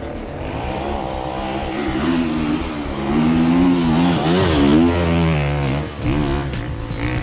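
Enduro dirt bike engine revving up and down as it is ridden over rough trail, the revs rising and falling several times and loudest in the middle.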